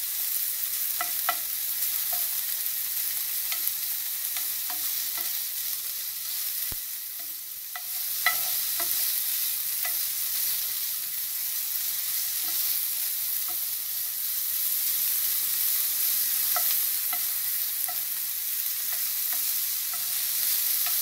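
Chopped bacon sizzling in a nonstick frying pan over medium heat. It is stirred with a slotted plastic spoon, and scattered light clicks run through the steady sizzle.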